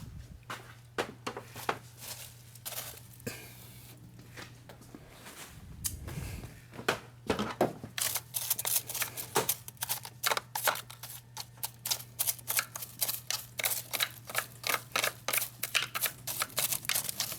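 Rapid clicking and ticking, sparse at first and then several clicks a second from about seven seconds in, over a steady low hum.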